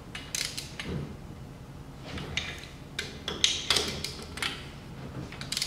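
Socket ratchet clicking in several short runs as the cylinder base bolts are snugged up.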